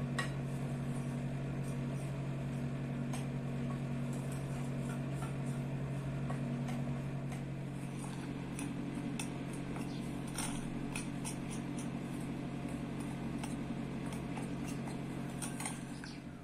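Metal spoon stirring flour in a glass bowl, with scattered light clicks of the spoon against the glass, over a steady low hum.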